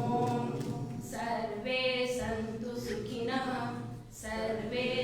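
A woman chanting a Sanskrit peace mantra in a sung, melodic style, holding long notes in phrases with short pauses for breath.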